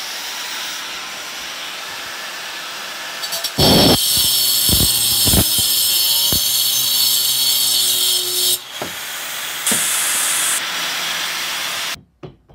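Angle grinder running, then its cutting disc grinding through the copper pipe stubs on the side of a steel fridge compressor. The cut starts about four seconds in and is louder and harsher for about five seconds. A shorter cut comes near ten seconds, and the grinder stops abruptly near the end.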